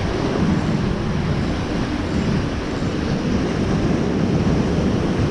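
Steady wind rumbling on the microphone, with the rush of the sea underneath.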